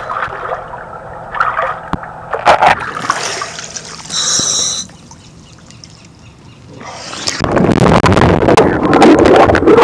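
Water splashing and sloshing at the surface, with a few sharp knocks, then from about seven and a half seconds in a loud, steady underwater rush as the microphone goes below the surface.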